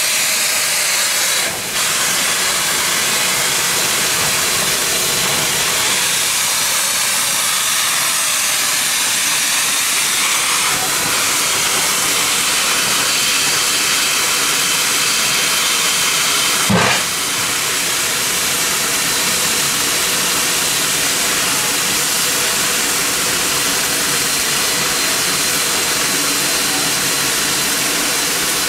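Steam hissing steadily from the front of a 1920 Baldwin 0-6-0 switcher steam locomotive, escaping low beside its cylinders. A single short knock comes about 17 seconds in.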